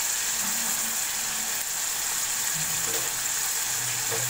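Chicken in onion-tomato masala sizzling and bubbling in a non-stick wok with a little water added: a steady, even hiss.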